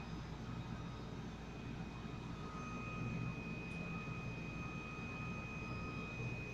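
A steady low hum with a faint, high, steady whine over it.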